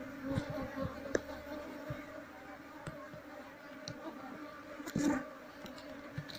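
Steady buzzing of a disturbed Asian honeybee (Apis cerana) colony, a continuous hum of many wingbeats. A few short knocks sound over it, the loudest about five seconds in.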